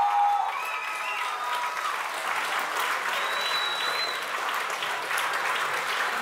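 A club audience applauding steadily, with whoops of cheering in the first two seconds and a long high whistle about three seconds in.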